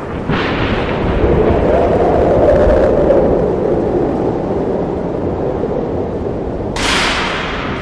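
Sound-effect thunder: a sharp crack about a quarter second in rolls into a long rumble, and a second crack comes near the end and fades.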